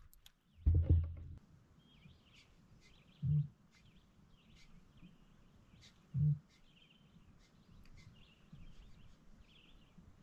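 A bird chirping over and over in short, wavering notes, with three dull low thumps about a second, three seconds and six seconds in.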